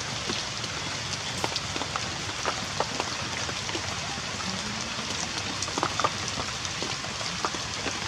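Heavy rain falling steadily, with scattered sharp hits of single drops.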